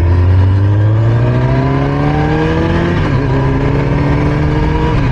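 Sport motorcycle engine accelerating hard under wide-open throttle, its pitch climbing steadily. About three seconds in, an upshift drops the pitch, and it climbs again.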